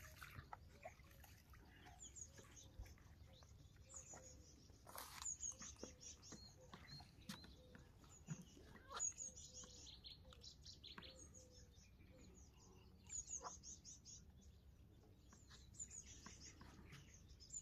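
Quiet riverside ambience: small birds chirping faintly and repeatedly, with a few soft splashes and drips as a cast net is drawn in through the water by its rope.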